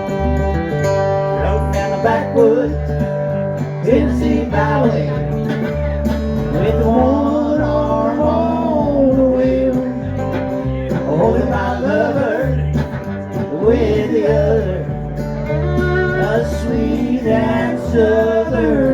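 Live country band playing, with guitar, a bending string melody line and a steady bass.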